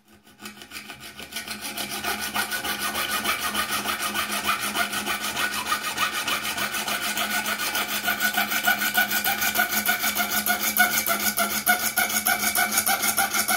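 Coping saw cutting razor-scale blank material clamped in a vise, in quick, even back-and-forth strokes. It starts faintly and builds over the first two seconds, then keeps a steady rhythm.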